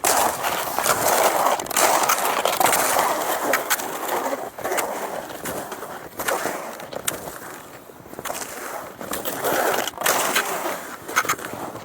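Cross-country skis scraping and gliding over snow, in repeated swells stride after stride, with scattered sharp clicks.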